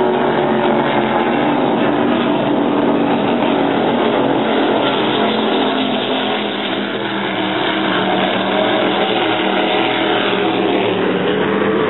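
Offshore racing powerboats running flat out, their engines making a loud, steady drone of several overlapping notes that waver slightly in pitch, with a small dip about halfway through.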